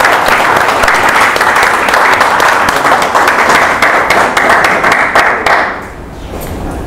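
Small audience clapping, steady and dense, then dying away about six seconds in.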